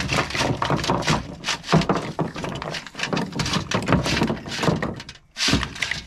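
Oysters in their shells clattering as they are poured from a perforated metal steamer basket onto a pickup truck's tailgate: a dense run of shell-on-shell and shell-on-tailgate knocks and rattles. There is a brief gap about five seconds in, then another burst.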